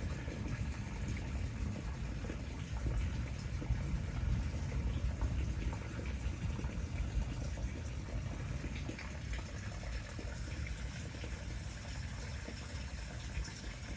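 Steady rain in a thunderstorm: an even wash of noise with a heavy low rumble underneath.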